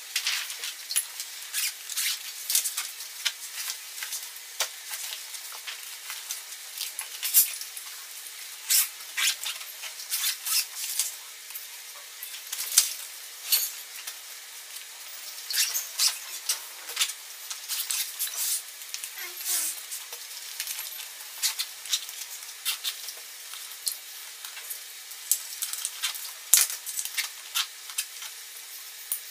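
Handling noise of a nylon tactical backpack being packed and pressed by hand: irregular rustling of the fabric and light clicks and knocks of gear being moved about on a wooden table.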